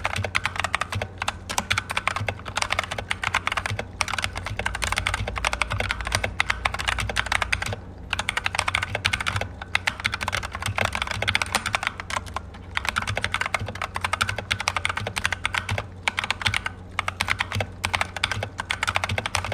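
Continuous fast typing on an Akko 3068 Silent mechanical keyboard with silent switches: a rapid, uneven patter of keystrokes, broken by a few short pauses.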